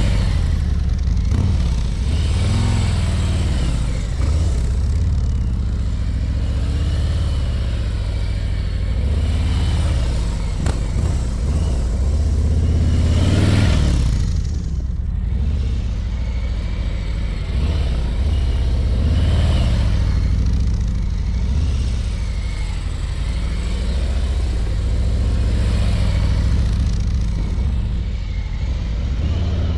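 Harley-Davidson Ultra Limited's V-twin engine running at low, slow-riding speed as the motorcycle circles past, swelling as it comes closest about halfway through.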